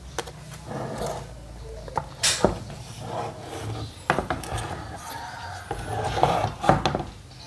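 Handling noise from a portable speaker's opened plastic housing and amplifier circuit board being shifted by hand: scattered clicks and knocks with stretches of plastic rubbing.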